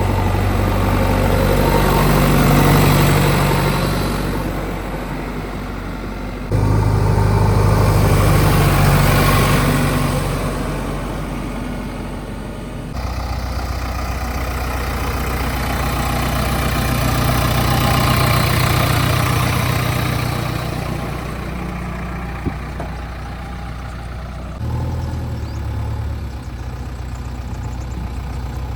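Diesel engine of a JCB 3DX backhoe loader running, swelling and easing off every few seconds as it works. The sound changes abruptly three times, as between joined clips.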